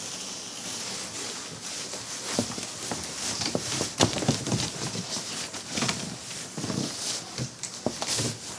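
A large empty cardboard box shuffling and sliding over carpet as it is pushed from underneath: cardboard rustling and scraping, with a string of sharp knocks and taps from its flaps and walls, the loudest about four seconds in.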